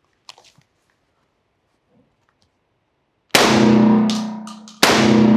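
Two shots from a Mossberg 940 Pro Tactical semi-automatic 12-gauge shotgun, about a second and a half apart, each ringing on and dying away in the reverberant indoor range.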